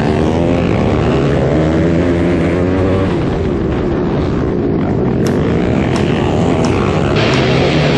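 Racing ATV engine heard from on board, its pitch rising and falling as the throttle is worked around a dirt track. A few sharp clicks come in the second half.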